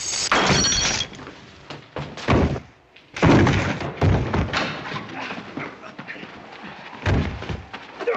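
Fistfight sound effects: a string of heavy, irregularly spaced thuds and thumps as punches land and bodies hit the dirt. The loudest comes about three seconds in.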